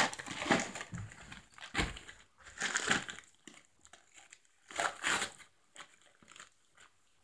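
Pit bull crinkling and tearing the paper wrapping of a present with its mouth, in irregular bursts that are loudest in the first few seconds and again about five seconds in, thinning to small rustles near the end.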